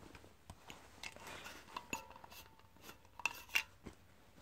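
Glass filament LED bulb being unscrewed from its lamp holder by hand: faint rubbing of the screw threads with a series of small clicks and taps of glass and plastic, the loudest a little after three seconds in.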